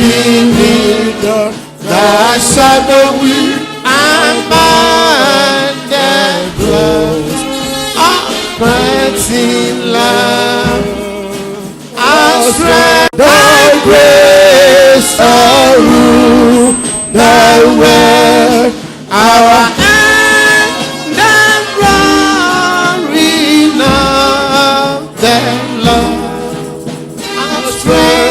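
Gospel music with a singing voice, its held notes wavering with vibrato.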